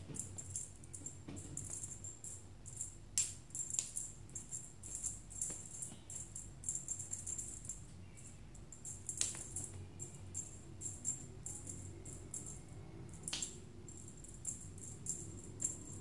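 Small jingle bells shaken in quick, uneven jingles, with a few sharp clicks among them.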